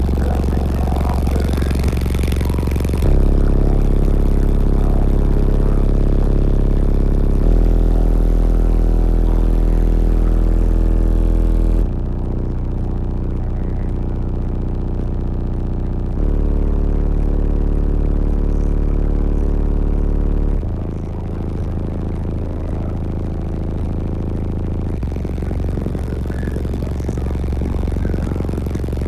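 Car audio subwoofers playing loud bass-heavy music heard inside the vehicle cabin. Deep held bass notes change pitch about every four seconds.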